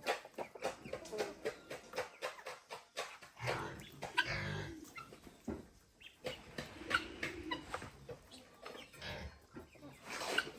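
Chickens clucking, among scattered knocks and clatter.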